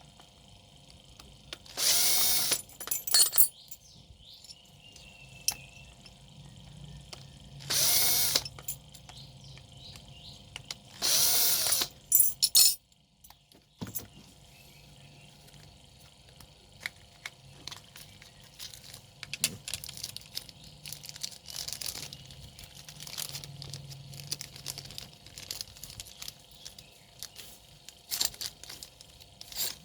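A power drill run in three short bursts of about a second each, unscrewing parts while a hand planer is taken apart, with small metal clicks and taps of parts being handled in between.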